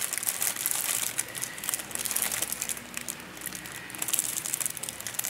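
Plastic packaging crinkling and rustling as hands work at the wrapping and zip ties on a newly unboxed chainsaw.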